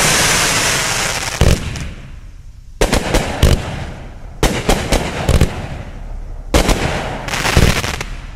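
A 500-gram consumer fireworks cake firing its shots: loud hissing at the start, then about four clusters of sharp bangs, roughly one every second and a half, with hissing between them.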